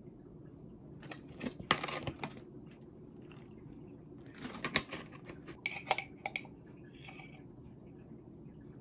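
Clinks, knocks and scrapes of a glass peanut butter jar and a metal spoon being handled at a table. They come in two short clusters, about a second in and again from about four and a half to six and a half seconds in, as the jar is opened. A low steady room hum runs underneath.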